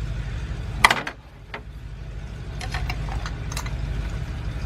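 Metal tool clicks as a spark plug is lowered into the cylinder head and threaded in with a socket and ratchet: one sharp click about a second in, then a quick run of ratchet clicks. A steady low hum runs underneath.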